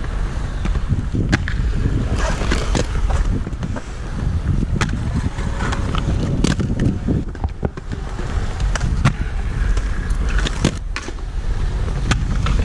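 Aggressive inline skates on Ground Control frames rolling over concrete with a steady low rumble, broken by sharp clacks and scrapes as the skates land on and grind along concrete ledges.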